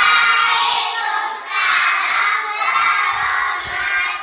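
A group of young children chanting loudly in unison, in two long phrases, answering the Islamic greeting with the customary reply "Waalaikumsalam warahmatullahi wabarakatuh".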